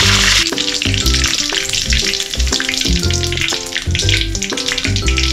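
Curry leaves sizzling and crackling in hot oil in a kadai: a loud hiss that drops off about half a second in, then fainter crackling. Background music with a steady beat plays throughout.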